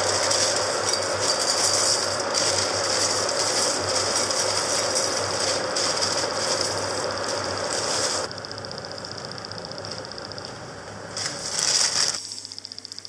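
Cornflakes poured from a plastic bag into a bowl: the dry flakes rattle and the bag crinkles. The pouring eases off about eight seconds in, and there is one more short loud burst near the end before it stops suddenly.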